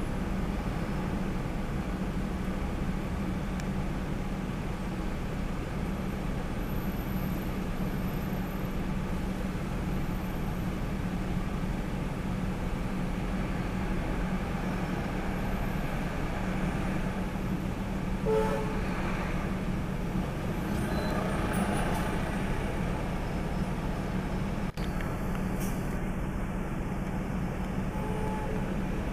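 Steady city street traffic noise with a low engine hum underneath, and a short horn toot about two-thirds of the way through.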